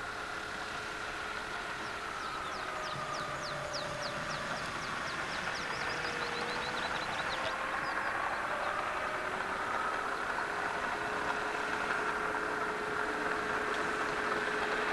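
Pipistrel Velis Electro's 77-horsepower electric motor and propeller whining steadily as the plane taxis, the pitch wavering slightly and the sound growing gradually louder as it comes closer. A rapid series of high chirps sounds from about two to seven seconds in.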